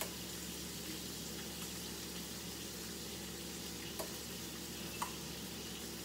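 Catfish filet searing in hot shortening in a pan, a steady sizzle with a few sharp pops.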